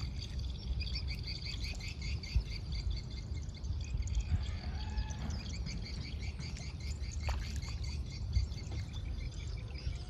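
Small birds chirping in quick runs of short repeated notes over a steady low rumble. The chirping thins out about two-thirds of the way through, and a single sharp click comes at about that point.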